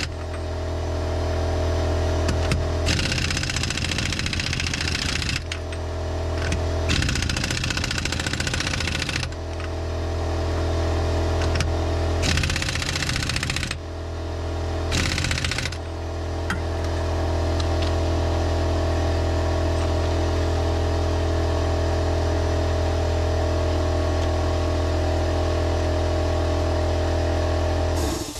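Half-inch air impact wrench hammering on a rear hub's 32 mm axle nut in four bursts of one to two seconds each, over a steady motor hum.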